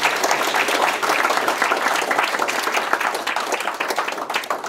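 Audience applauding: many people clapping at once in a dense, steady patter, tailing off near the end.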